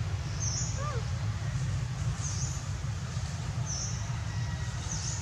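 A bird's short, high chirp repeating about every second and a half over a steady low rumble, with one brief lower call about a second in.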